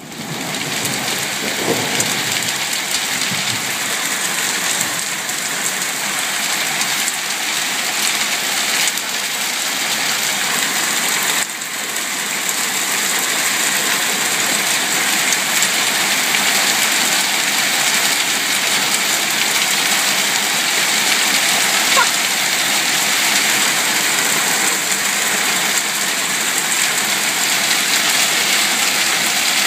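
Hailstones falling heavily onto a paved path, lawn and shrubs: a steady, dense hiss of countless small impacts.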